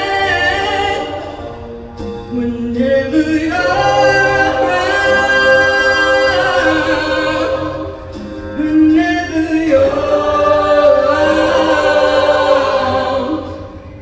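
A mixed show choir singing long held chords in three swelling phrases, with short dips about two and eight seconds in; the final chord dies away at the end.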